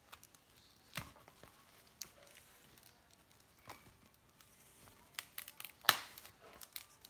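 Long latex modelling balloon being twisted and handled: the rubber squeaks and rubs in short, scattered sounds, the loudest a sharp squeak about six seconds in.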